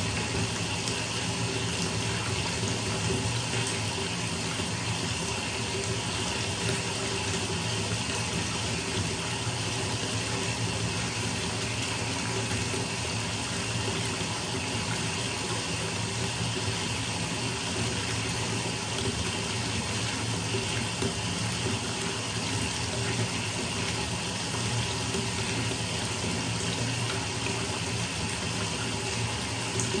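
Bathtub filling: a thin stream from a wall-mounted spout pouring steadily into the deep water already in the tub.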